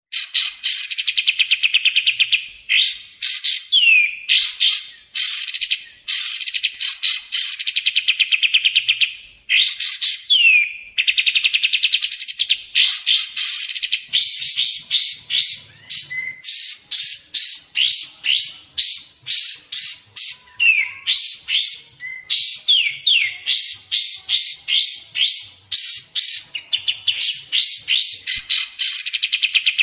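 Kapas tembak song: long runs of fast chattering trills, phrase after phrase, broken up by short whistles that slide downward.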